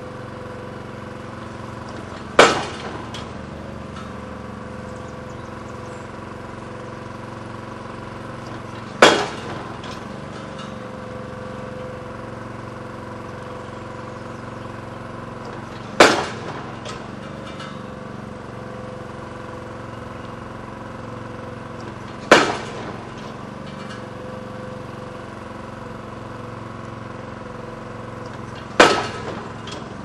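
Pile driver hammer striking a piling five times, about every six and a half seconds, each blow a sharp bang with a brief ring. An engine runs steadily underneath.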